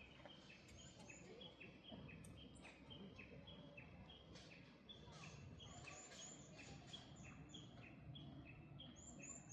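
Faint birdsong: short, high chirps with a slight downward slur, repeating about twice a second, over a low outdoor rumble.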